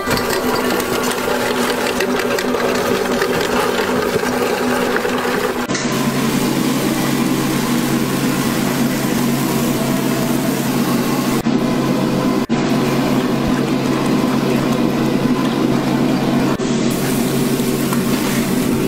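A steady mechanical hum of a running motor. Its tone shifts abruptly about six seconds in, and it drops out briefly a few times.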